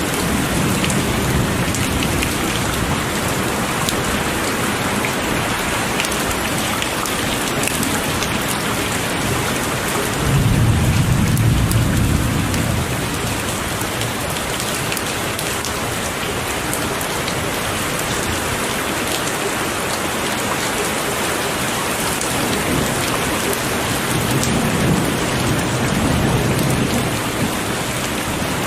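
Heavy rain falling steadily, with rolls of thunder rumbling low beneath it: a faint one near the start, the loudest about ten seconds in, and another late on.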